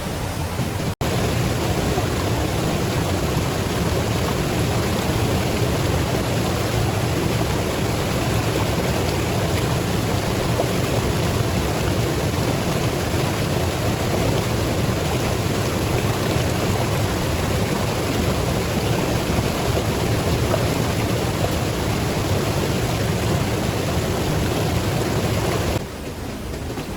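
Steady rush of flowing river water, an even noise without a rhythm. It cuts out for an instant about a second in and drops lower near the end.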